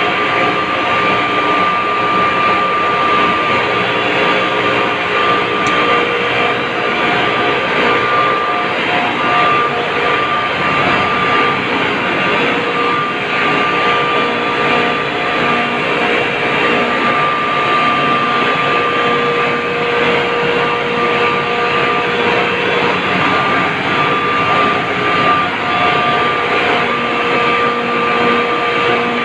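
Steady loud drone of an ice plant's refrigeration machinery running, compressors and motors, with a few steady whining tones held over the noise.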